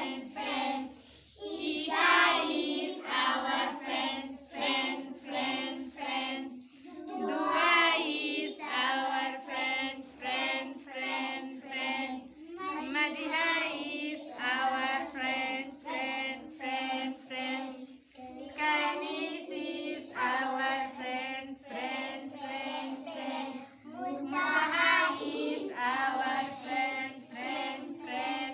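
A group of young children singing together in short repeated phrases, with brief breaks between lines.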